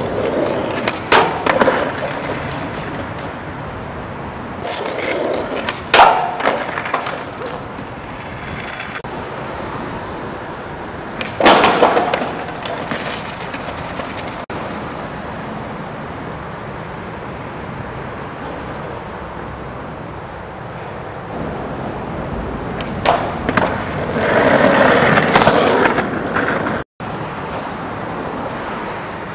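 Skateboard wheels rolling over rough asphalt, broken several times by sharp clacks of the board popping and landing, with a longer, denser stretch of board noise near the end.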